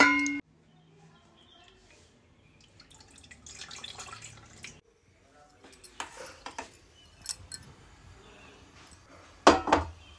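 Kitchen handling sounds from a stainless-steel saucepan at a gas stove: light clinks and clicks of metal, with one louder short knock near the end.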